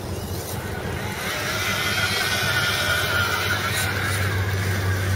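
Radio-controlled scale rock crawlers climbing over a dirt bank, their electric motors and gearboxes whining. The whine builds from about a second in over a steady low hum.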